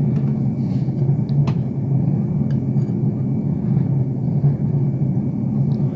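Steady low rumbling drone, a starship engine ambience sound effect.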